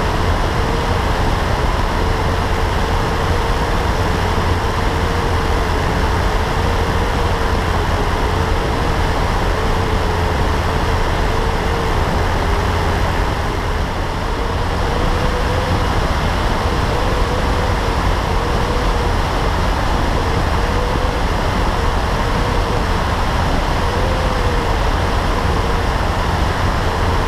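Light aircraft's piston engine and propeller running steadily in flight, picked up by a camera mounted under the wing, with a constant heavy rush of wind noise over the microphone.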